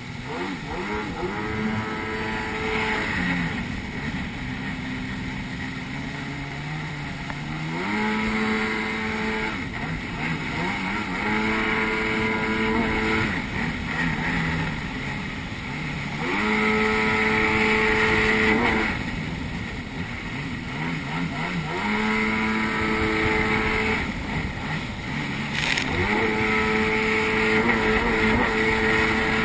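Jet ski engine running at speed, its pitch climbing, holding and dropping back over and over as the throttle is worked, over the rushing hiss of water and spray off the hull.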